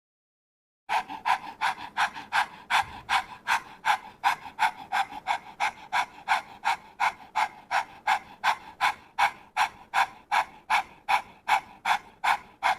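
A person doing rabbit breathing, a yoga breathing exercise: rapid rhythmic panting of short, forceful breaths, about three a second. It starts about a second in and keeps an even pace.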